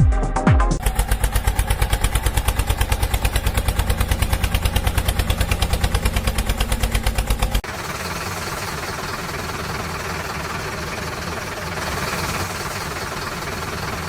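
Heavy diesel vehicle engine sound effect: a fast, even chugging of about nine beats a second, switching abruptly about seven and a half seconds in to a steadier running drone.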